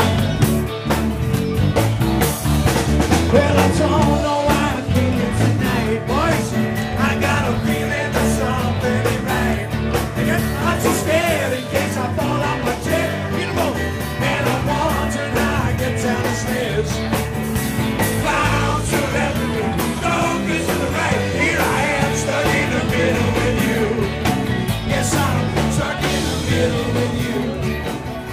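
Live rock band playing a song with a singer, heard loud and continuous in a crowded room.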